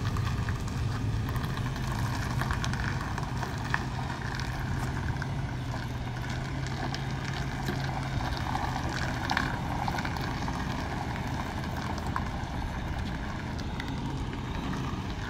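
Semi-truck's diesel engine running at low revs as the tractor-trailer reverses very slowly, a steady low hum that weakens after about ten seconds.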